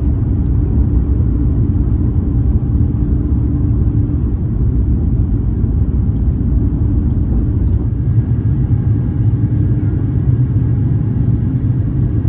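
Steady low rumble of an Airbus A350-900 airliner heard from inside the cabin: engine and air noise with a faint hum.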